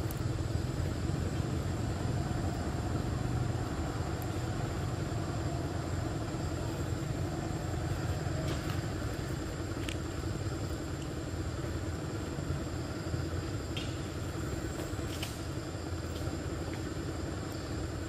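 Steady low outdoor rumble with a thin high steady tone above it, and a few faint clicks in the second half.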